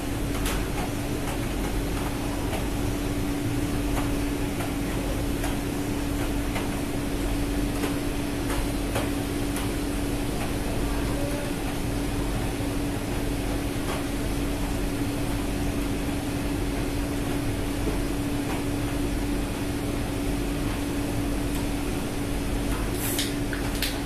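Steady drone of a ship's machinery: an unbroken hum with one strong steady tone, a few faint clicks, and a short sharp sound near the end.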